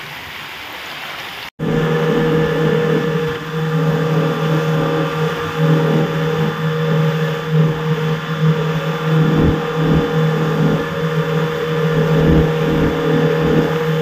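An engine running loud and steady at an even pitch, cutting in abruptly about a second and a half in after a softer even hiss.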